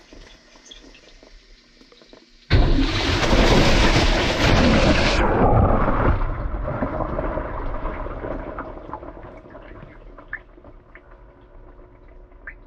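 Water rushing and splashing through a washing machine drum, heard by a camera riding inside it. It starts suddenly about two and a half seconds in, is loudest for a couple of seconds, then fades over several seconds to a low churning.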